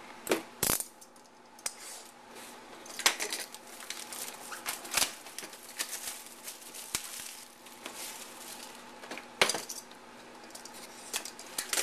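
Cardboard trading-card box and card packs being handled: scattered short taps, clicks and light scrapes of cardboard against cardboard and the table.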